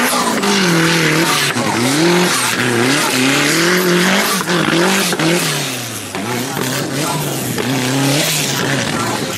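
Off-road racing buggy's engine revving hard on a dirt course, its pitch climbing and falling again and again as the throttle is worked, over a rough hiss of tyres on dirt and gravel.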